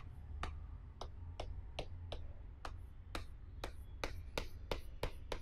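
Chalk ticking against a blackboard in quick short strokes, about four a second, as section hatching is shaded in.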